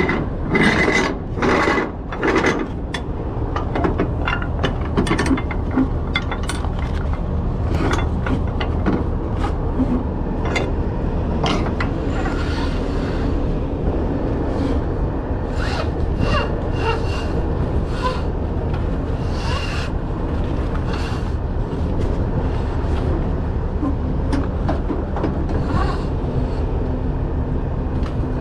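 Nylon cargo strap being dragged over a flatbed trailer's aluminium rub rail and worked into the under-deck strap winches: rubbing and scraping with scattered clicks and rattles of metal hardware, busiest in the first few seconds. A steady low rumble runs underneath.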